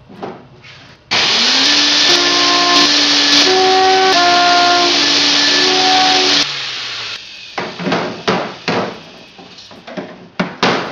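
Metal diapason organ pipes sounded by a rush of blown air: a low pipe note slides up into pitch and holds, while higher pipe notes come and go over it, and all of it cuts off abruptly after about five seconds. Then the metal pipes clink and knock as they are handled in their wooden box.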